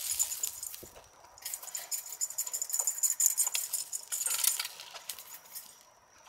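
Charcoal ember poi being spun: a rhythmic, crackling rush that swells with each swing, with metallic chinking from the chain and wire cage. It drops off briefly about a second in and fades near the end.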